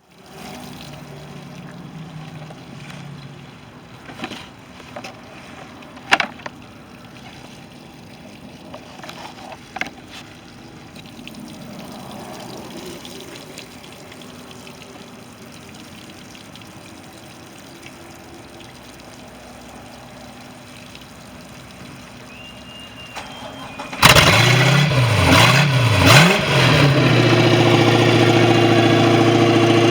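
Boat's MerCruiser engine starting: quiet with a few clicks and knocks for most of the time, then about three-quarters of the way through the engine fires abruptly, its revs rising and dipping a few times before it settles into a steady idle.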